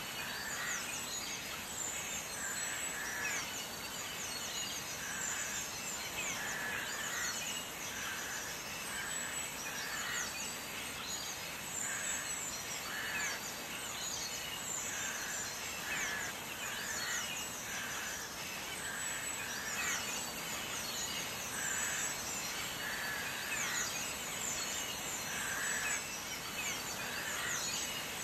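Steady sizzling of beef and then sliced green onions and peppers frying in oil in a nonstick pan, stirred with a silicone spatula, with many small sharp pops.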